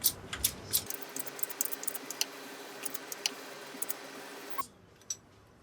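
Sharp metallic clicks and light rattling as a new bush is pressed into the starter motor housing with a shop press, quick and busy at first and thinning out later. A faint steady hum behind them stops suddenly near the end.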